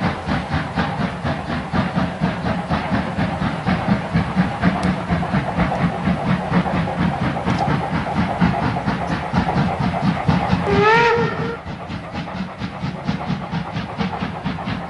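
Steam locomotive working hard, its exhaust beating in a quick, even rhythm of chuffs with hissing steam. About eleven seconds in, the steam whistle gives one short blast that rises slightly in pitch at the start.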